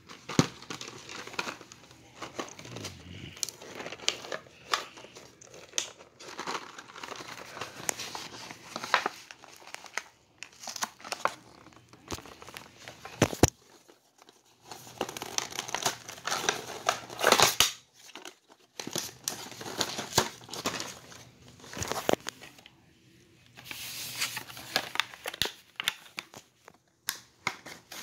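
Toy packaging being opened by hand: plastic and cardboard crinkling, rustling and tearing in irregular spells, with scattered sharp clicks.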